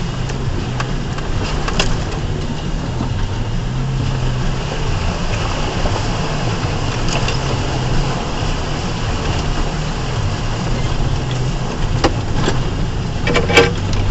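2004 Ford Ranger's 4.0-litre V6 running at low revs, its pitch rising and falling a little while the truck crawls a trail. There are a few light knocks along the way and a sharp clatter near the end.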